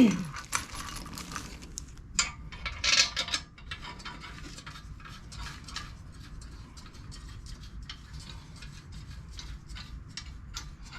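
Rapid light clicking and clatter, loudest in the first second and again around two to three and a half seconds in, then fainter, fairly even ticking.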